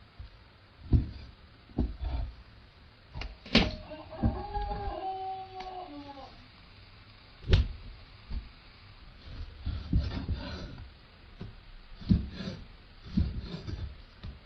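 Scattered knocks and thuds, with one drawn-out animal call lasting about two seconds, from about four seconds in.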